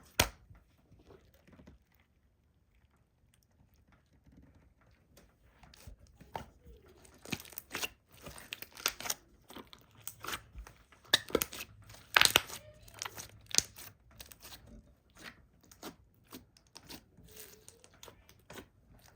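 Sparkly slime being stretched and squeezed by hand, giving crackling pops and clicks as air bubbles in it burst. After one sharp click at the start it is fairly quiet, then from about six seconds in the pops come thick and fast.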